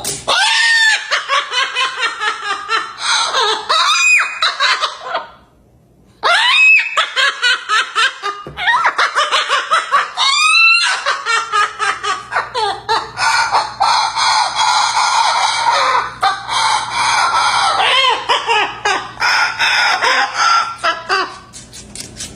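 A white parrot imitating human laughter in long runs of rapid laugh-like pulses, broken by several sharp rising squawks and a short pause about five seconds in.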